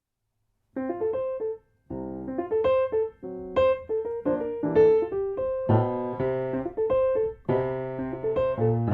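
Background piano music, a melody of struck notes starting about a second in, with a brief gap shortly after.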